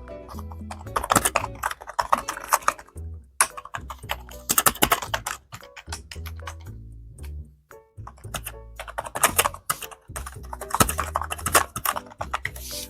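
Typing on a Gamen GK300 membrane keyboard: a steady run of quiet keystrokes, with background music under them.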